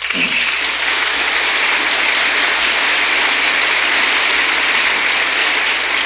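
Audience applauding, a steady clapping.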